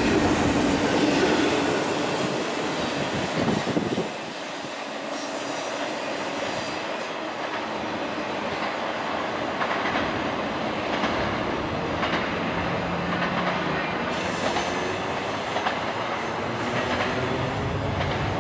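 Freight train cars rolling past on curved track, steel wheels squealing and clattering over the rails. The sound drops off about four seconds in as the last cars pass, leaving a fainter rumble and squeal from the receding train.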